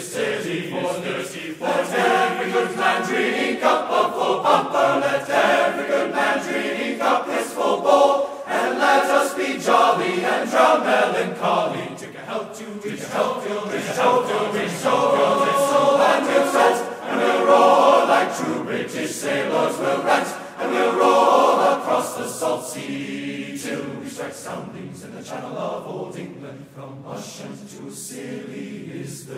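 Background music: a choir singing, growing quieter in the last several seconds.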